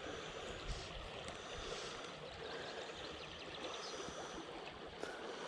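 Water of a small river flowing steadily past, an even rushing sound.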